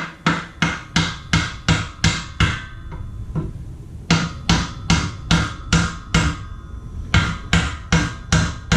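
Hammer blows on a metal board laid over a bearing race in a Honda Ruckus frame, driving the race into its seat. Evenly spaced strikes about three a second come in three runs with short pauses between, each blow ringing briefly.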